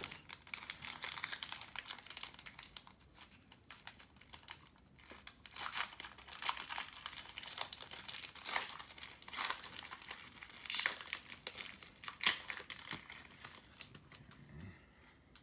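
Foil wrapper of a Panini Prizm basketball card pack crinkling as it is opened by hand, in irregular crackles that thin out near the end.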